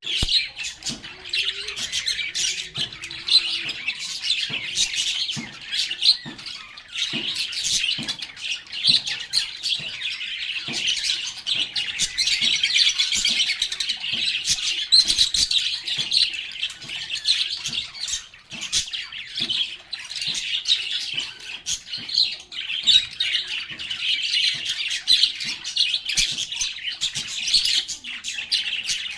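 A flock of lovebirds chirping and chattering without a break, a dense mix of many short, sharp calls.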